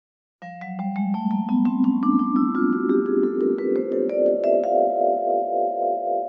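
Vibraphone played in a quick rising run of about twenty mallet strokes, starting about half a second in; the bars then ring on together with a pulsing tremolo.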